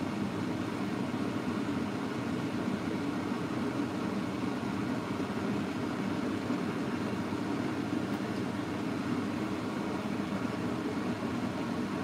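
Steady, unchanging low hum of kitchen background noise while a pot is on the boil.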